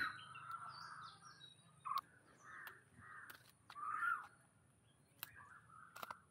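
Birds calling outdoors: a series of short, harsh calls repeated about five times, loudest at the start, with a few sharp clicks between them.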